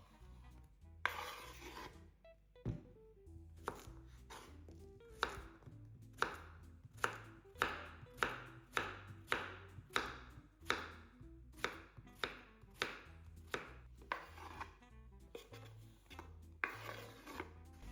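Knife chopping vegetables on a cutting board: a run of sharp strokes, about two a second through the middle, sparser at the start and near the end. Soft background music underneath.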